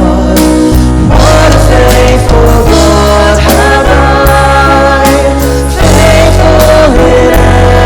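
A Christian worship song: a group of voices singing together over a band, with sustained bass notes and a steady beat.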